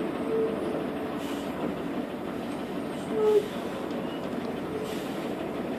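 Interior noise of a Jelcz PR110 CNG city bus under way: a steady rumble and rattle, with a few short squeaks, the loudest about three seconds in.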